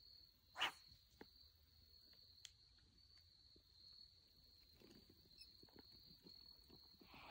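Faint steady high-pitched trill of crickets, with a few scattered soft knocks, one louder and sharper about half a second in.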